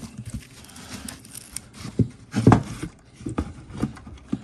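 Handling noise as an FPGA crypto-mining unit is worked out of its box and foam packing: rustling and scraping with scattered knocks, the loudest about two to two and a half seconds in.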